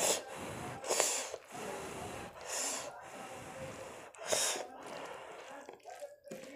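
Four loud, breathy rushes close to the microphone, a second or two apart, over a quieter continuous rustle of fingers mixing rice and kidney-bean curry on a plate.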